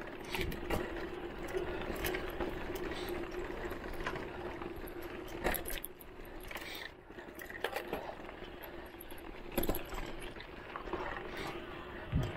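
Electric mountain bike's motor running with a steady whine under the hiss of tyres on a dirt trail. Sharp knocks and rattles from the bike frame and parts jolting over bumps come every second or few seconds.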